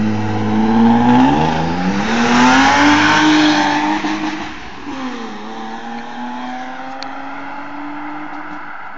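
BMW 325i straight-six engine revving: the pitch climbs over about a second and a half and holds, then drops back about five seconds in to a steady idle.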